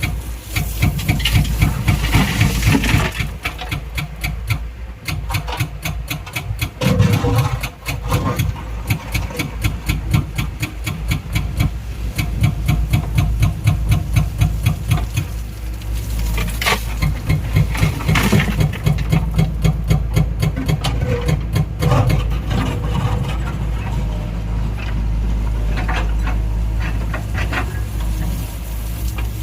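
Diesel engine of a JCB 3DX Xtra backhoe loader running steadily, rising in several surges as it works the loader hydraulics while loading murum into a trolley.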